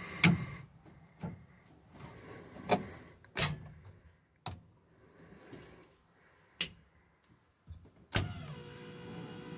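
Cockpit toggle switches being flipped, several sharp separate clicks. About eight seconds in, one click is followed by a steady electric hum, an electric high-pressure fuel pump switched on and running before the rotary engine is started.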